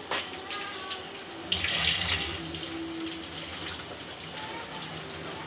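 Running water: a sudden loud rush about a second and a half in that eases after about a second into a quieter, steady flow.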